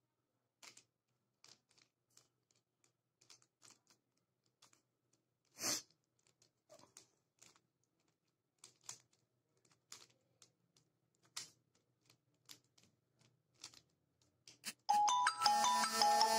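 Irregular plastic clicks and clacks of a mirror cube's layers being turned by hand, with one louder clack about six seconds in. About a second and a half before the end, a bright, plinking music melody starts.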